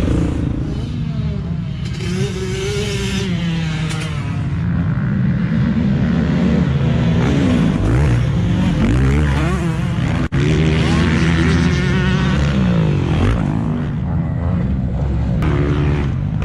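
Several motocross dirt bikes' engines revving up and down on the track, pitch rising and falling again and again with engines overlapping.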